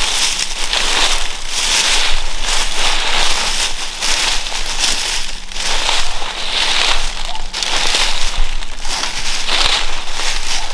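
Footsteps crunching and rustling through dry fallen leaf litter, a quick run of crackly steps.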